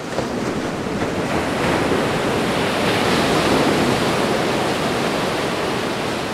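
Ocean surf: waves breaking and washing up a beach as a steady rush that builds toward the middle and eases a little near the end.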